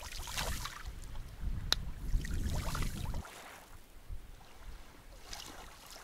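Wind buffeting the microphone in a low rumble that cuts off suddenly about three seconds in, with a brief hiss near the start and a single sharp click.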